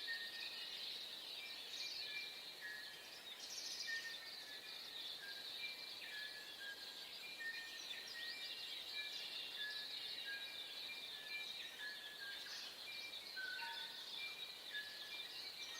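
Dawn chorus of many birds: a dense, high chirping and twittering throughout, with short whistled notes repeating again and again on two alternating pitches.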